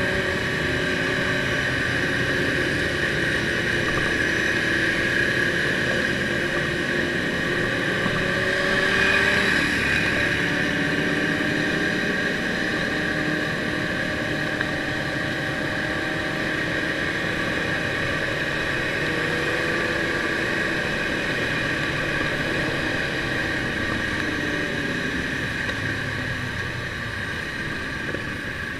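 Motorcycle engine running at road speed under a steady rush of wind, its pitch sliding gently up and down as the throttle is rolled on and off; a little louder about a third of the way in, easing off near the end.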